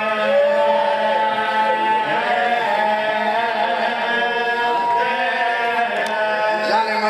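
A man chanting a Shia Muharram mourning lament (noha) into a microphone, drawing out long held, wavering notes over a steady low hum.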